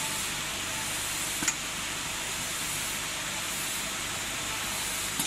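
Steady hissing workshop background noise, with a sharp click about a second and a half in and a smaller one near the end.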